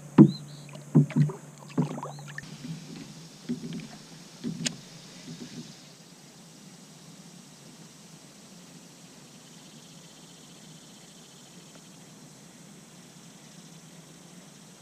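Knocks and clatter from an angler handling a bass and his gear in a kayak, dying away after about five seconds, followed by a faint steady hiss.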